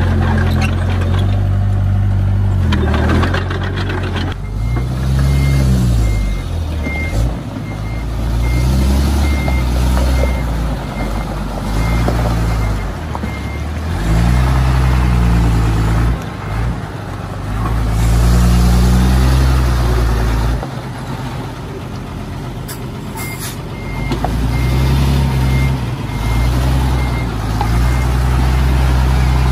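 Diesel engine of a Komatsu D20P bulldozer working under load, its pitch rising and falling again and again as it pushes. From about four seconds in, a vehicle's reversing beeper sounds a repeated high beep over it.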